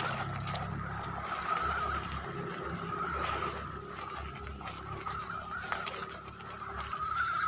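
PXtoys 9303 Desert Journey 1/18 4x4 RC truck driving over gravel: a steady, slightly wavering whine from its small brushed electric motor and gears over the rough crunch and rattle of its tyres on stones, with a sharp knock a little after the middle.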